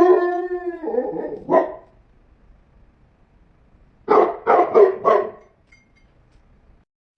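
A dog barking. A long, drawn-out bark at the start is followed by a short one, then a quick run of four barks about four seconds in.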